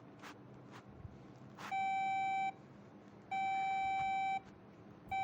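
Electronic alert tone beeping in a repeating on-off pattern: two long, steady, mid-pitched beeps of about a second each, with a third starting right at the end. A few faint clicks come before the first beep.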